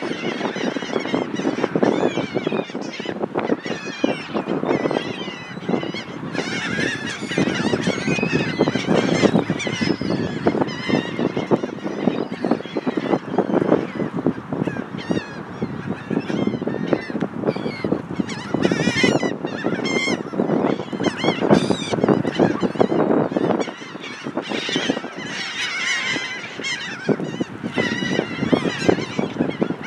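A flock of seagulls squawking and calling without a break, many overlapping cries at once as they crowd and compete for food being handed out, over a steady low rush.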